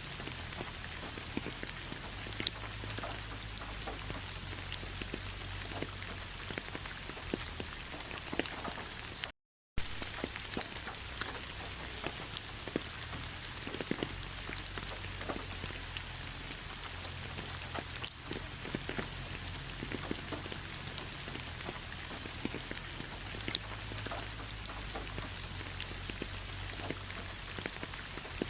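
Autumn rain falling on fallen leaves: a steady hiss of rain with many separate drops ticking on the leaves. The sound cuts out completely for a fraction of a second about nine seconds in.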